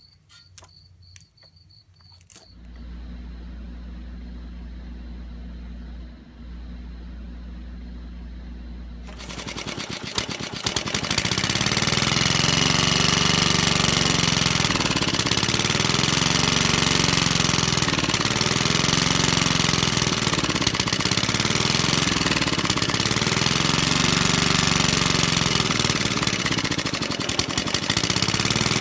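1948 Clinton 702-ABR6 single-cylinder engine, not run for about 20 years, coming to life after a rope pull: a low steady hum for several seconds, then about ten seconds in the engine catches and runs loudly, its speed swelling and easing slightly every couple of seconds.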